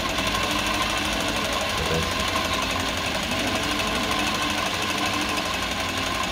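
Jack JK-20U63 industrial zigzag sewing machine running at a steady speed, stitching zigzag, with a fast, even rattle of needle strokes.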